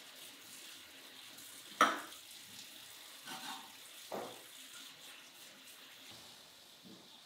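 Tap water running steadily into a metal sink, with three short metal clanks as small pots and lids are handled and knocked in the sink; the loudest clank, with a brief ring, comes about two seconds in.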